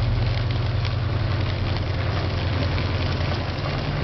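A vehicle engine running steadily: a low hum with hiss over it.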